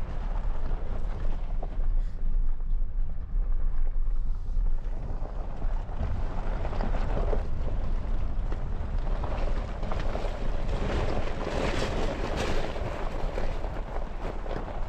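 Pickup truck driving on a gravel road: a steady low rumble with wind buffeting the microphone. A brighter hissing noise swells for a few seconds near the end.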